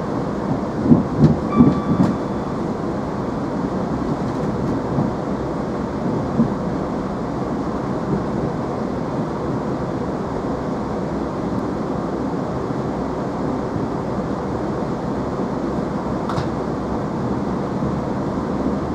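Steady running rumble heard inside a Chiltern Railways Class 165 diesel multiple unit travelling along the line. About a second in there is a quick run of four heavier knocks from the wheels over the track, and a single smaller knock comes a few seconds later.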